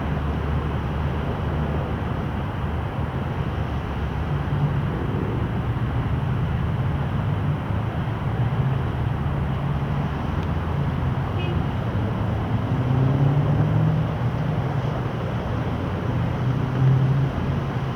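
Steady low rumble of a Boeing 737-800's CFM56 jet engines in flight, swelling slightly twice.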